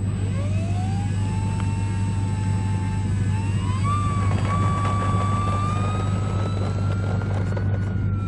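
RC model Pilatus PC-6 Porter's motor and propeller throttling up for the takeoff roll: a whine that rises about a third of a second in, holds, steps higher about four seconds in, then climbs slowly as the plane runs away. A steady low hum lies underneath.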